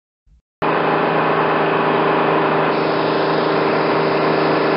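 Bus engine running steadily as a sound effect, cutting in suddenly about half a second in after a moment of silence.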